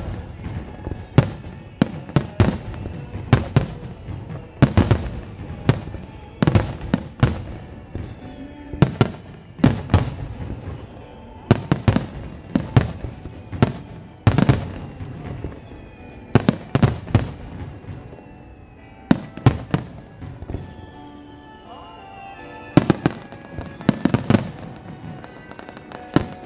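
Starmine fireworks bursting in rapid succession: sharp booms about once or twice a second, each trailing off in echo, with a lull about two-thirds of the way through before the bangs pick up again. Music plays underneath.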